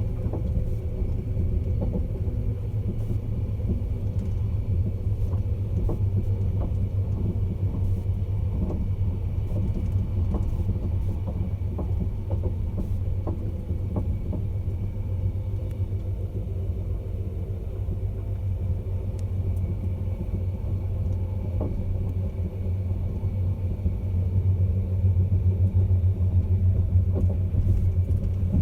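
Caledonian Sleeper train giving a steady low rumble with faint scattered clicks, growing a little louder near the end.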